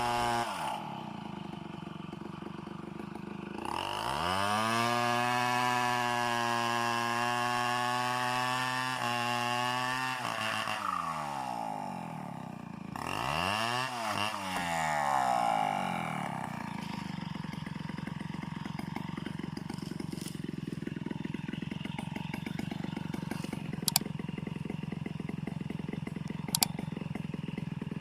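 Two-stroke chainsaw engine revved up and held at high speed for several seconds, dropped back, blipped twice more, then left running at a steady low idle. Two short sharp clicks come near the end.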